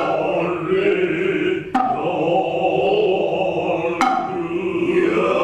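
Noh chanting (utai): low, long-held voices drawn out on slowly wavering pitches, with two sharp hand-drum strikes about 1.7 s and 4 s in.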